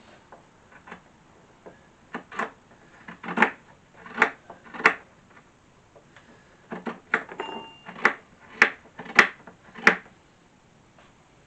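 Dry fatwood being worked by hand: about a dozen sharp, woody knocks and cracks in two irregular clusters.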